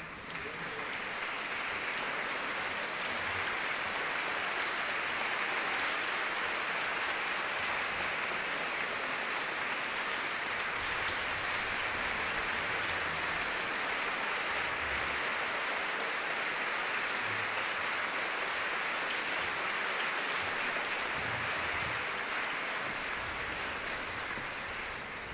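A concert-hall audience applauding, a steady dense clapping that dies away near the end.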